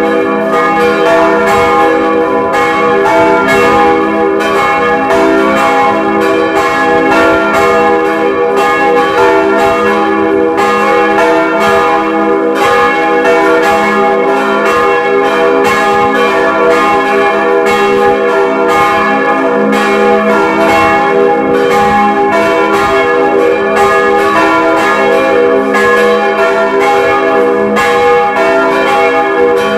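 Motor-driven swinging church bells pealing without a break, the strikes coming several times a second and overlapping in a dense, long-ringing wash of tones.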